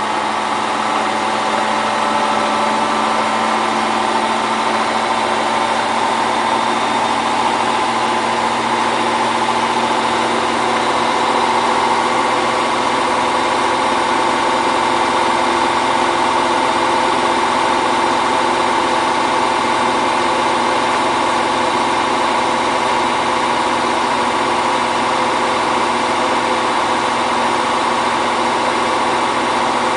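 Hotpoint Ultima WT960 washing machine spinning a heavy, unevenly balanced load, its motor giving a steady whine with a hum underneath.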